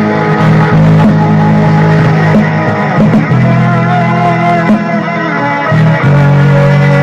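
Music: a rock song played on guitars with bass, notes changing every second or so.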